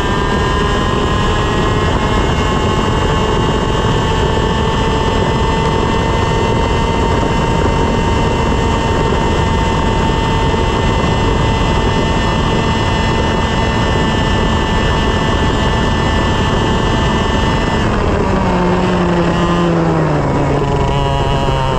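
125 cc two-stroke TaG kart engine running at high revs, its pitch held nearly level for a long stretch. About eighteen seconds in the revs fall away over a few seconds, then begin climbing again near the end.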